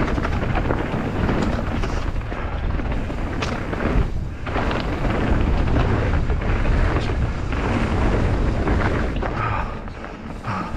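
Mountain bike descending a rough forest trail at speed: wind buffeting the microphone and tyres rumbling over rock and gravel, with a steady run of knocks and rattles from the bike and one sharp knock about four seconds in. The rumble eases a little near the end.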